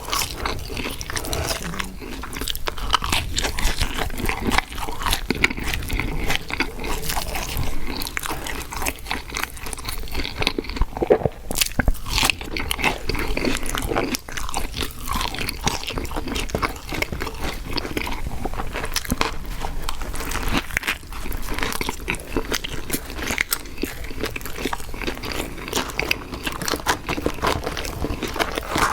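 Close-miked eating: a person biting and chewing fast food, with continuous crunching and wet mouth sounds.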